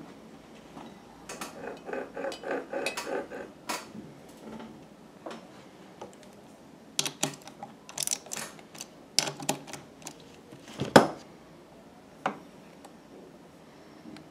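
Small metal clicks and clinks from the Pfaff 1245 sewing machine's hook-drive parts, its bevel gears and hook assembly, being handled and turned. A quick rattling run comes about one to four seconds in, followed by scattered sharp clicks. The loudest click comes about eleven seconds in.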